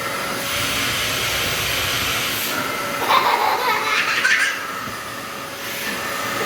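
Vacuum cleaner running with a steady hiss. A young child laughs loudly for about a second and a half, starting about three seconds in.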